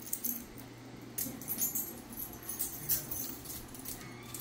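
Pomeranians scuffling on a hard tiled floor: light metallic jingling of collar tags and sharp clicks from claws on the tiles, in irregular bursts that are busiest between about one and three seconds in.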